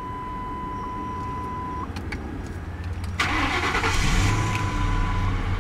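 A steady high chime tone for about two seconds, then a little after three seconds the 2003 Lincoln Town Car's 4.6-litre V8 cranks briefly on the starter and catches at once, flaring up before settling into a steady idle.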